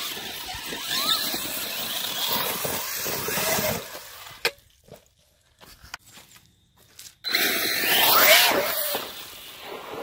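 Arrma Talion 6S RC truggy's brushless motor and drivetrain whining, rising and falling in pitch as it revs, over a rush of noise from the tyres churning loose dirt. The sound drops away for about three seconds midway, with a few sharp clicks, then comes back louder just after seven seconds in.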